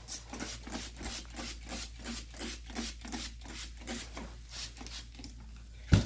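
Rapid back-and-forth scrubbing with a paper towel, a steady run of short scratchy rubbing strokes at about four a second. A sharp thump near the end.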